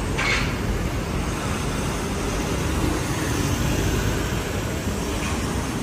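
City street traffic: a car and then a van driving past close by, a steady rumble of engines and tyres.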